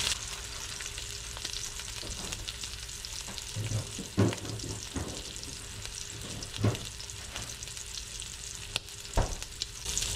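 Sausage patty and bacon sizzling in hot grease in a cast iron skillet, a steady hiss, with a metal spatula knocking and scraping against the pan a few times, loudest about four seconds in.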